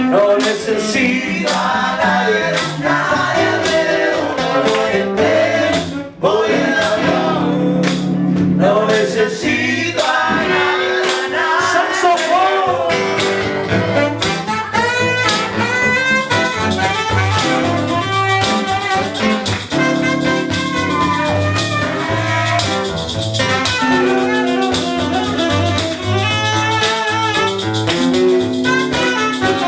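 A song playing: a singer over a band with guitar and brass, with a brief drop in level about six seconds in.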